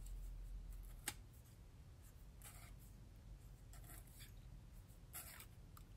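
Faint scraping of a worklight's threaded housing being unscrewed by hand: a small click about a second in, then three short scratchy rasps.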